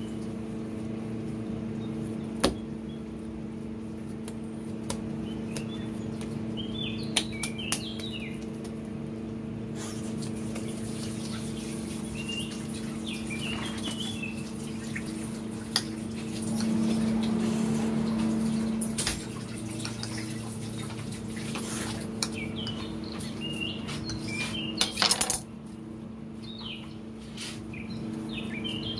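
Dough being kneaded and pulled apart by hand on a counter, with a few sharp knocks and clatter, over a steady low hum; birds chirp now and then in the background.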